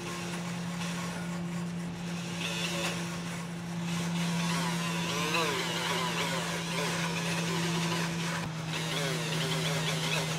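Corded rotary tool running a small wire-wheel brush against the steel spokes of a motorcycle wheel to clean them. A steady motor hum runs under scratchy rasping from the wire bristles, which changes as the brush is worked across the metal.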